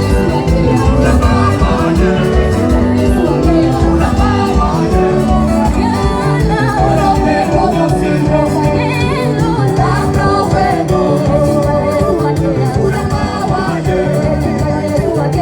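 A live band playing upbeat dance music with singing over a steady beat.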